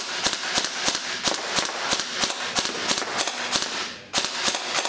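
Krytac Kriss Vector electric airsoft gun firing a long string of shots, sharp cracks about three a second. There is a short break about four seconds in before it fires again.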